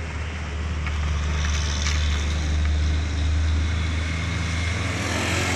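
Truck engine running steadily under way with a low drone, heard from inside the cab along with road noise.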